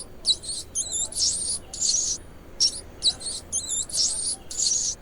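Rat squeaking: a run of short, high-pitched squeaks and warbling chirps, heard twice in a row.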